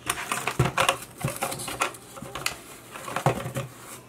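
Clear plastic coin capsule handled with cotton-gloved hands: a run of small irregular clicks and taps as the capsule is opened and a silver coin is seated in it.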